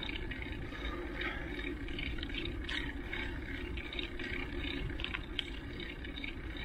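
Steady rushing noise from riding a bike over asphalt: wind across the microphone and tyres rolling, with a few small ticks and rattles.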